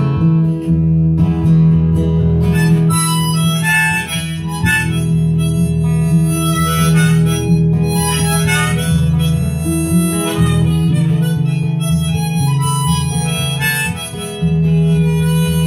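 Diatonic harmonica, played in a neck holder, carrying a melodic solo over acoustic guitar accompaniment: the instrumental break between verses of a folk song.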